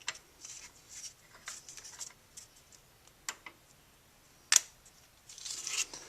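Hands working a stretched seal ring along a plastic sleeve on a shaft: scattered light clicks and short scrapes of plastic, with one sharp click about four and a half seconds in.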